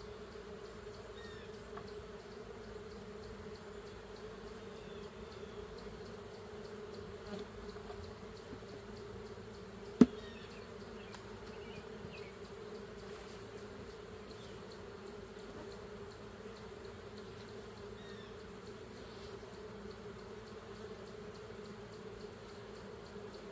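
Honeybees buzzing steadily around an opened hive as its frames are worked. One sharp knock about ten seconds in.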